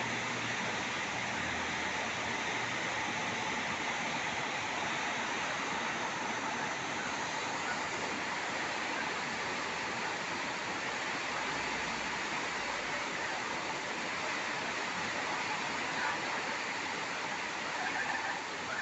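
Heavy rain pouring steadily, a dense, even hiss of water hitting the street, cars and roofs.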